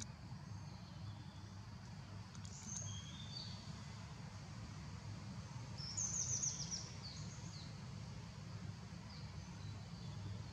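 Birds chirping in the background: thin high chirps, then a short quick trill of high notes about six seconds in, over a steady low rumble.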